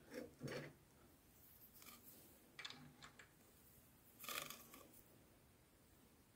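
Near silence: room tone with a few faint, brief noises, one a little louder about four seconds in.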